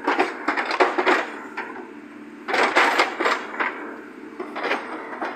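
Irregular metallic clanks and knocks from an excavator at work pulling out stumps for road widening, coming in uneven clusters with a short lull partway through.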